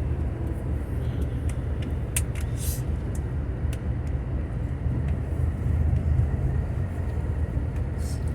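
Steady low rumble of a bus heard from inside the cabin: engine and road noise, with scattered small rattles and clicks.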